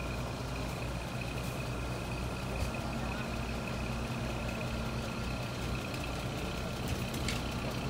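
Heavy diesel engine idling steadily, a low drone with a thin, steady high whine over it.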